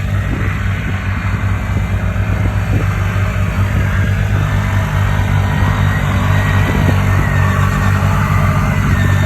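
ATV engine running at steady revs.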